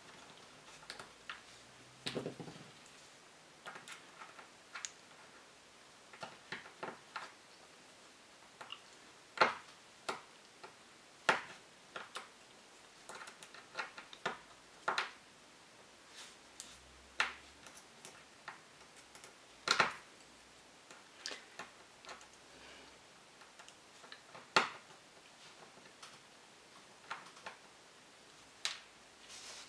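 Irregular clicks and taps of small metal model-engine parts and hand tools being handled during disassembly, with a few sharper knocks among them.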